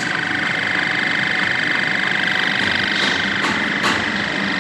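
Machinery running steadily with a continuous high whine over a low hum, and a couple of light knocks near the end.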